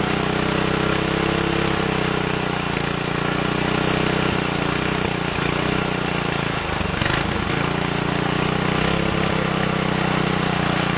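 Tecumseh 7 or 8 hp horizontal-shaft single-cylinder four-stroke engine running steadily on its freshly rebuilt carburetor, its speed dipping and wavering briefly about seven seconds in.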